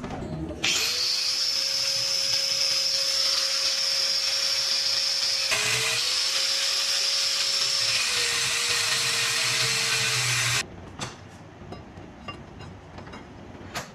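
Electric angle grinder running against a metal winch bracket clamped in a bench vise, a loud hiss over a steady motor whine. The motor note dips briefly about five seconds in and again near eight seconds, then the grinder switches off about ten and a half seconds in, followed by a few light knocks.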